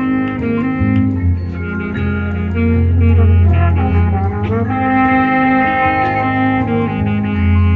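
Marching show band playing loud sustained brass chords over deep bass notes, with drum and percussion hits.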